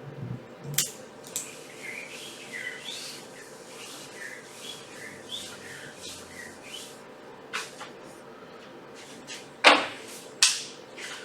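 Handwriting: a run of short squeaky, scratchy writing strokes, with a sharp click just under a second in and two louder sharp knocks near the end.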